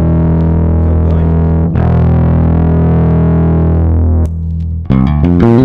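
Passive electric bass played through a Fuhrmann bass preamp pedal with its drive switched on. Two long, held, distorted notes are followed near the end by a quick run of short notes.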